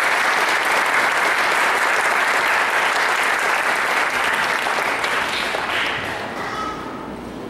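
Theatre audience applauding, the clapping dying away over the last two seconds or so.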